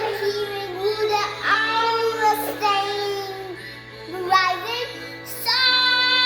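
A child singing slow, held notes with a slight waver over a steady sustained instrumental accompaniment.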